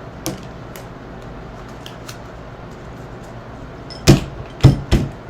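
Tarot cards being handled, with a small click early and then three sharp knocks near the end, the deck tapped against the table.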